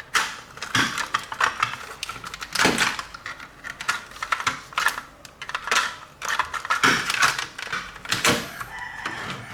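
Irregular run of hard plastic clicks and rattles from toy RC vehicle parts and packaging being handled.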